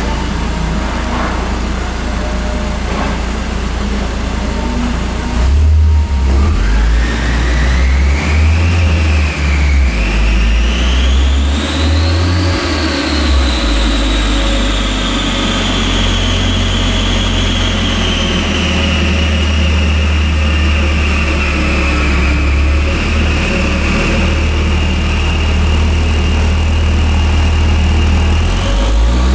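A 2007 Audi S3's turbocharged four-cylinder engine, breathing through a Milltek aftermarket exhaust, running on a chassis dynamometer during a power run. After about six seconds of steady running it builds speed, with a high whine that climbs for several seconds, dips briefly once, and then holds fairly steady.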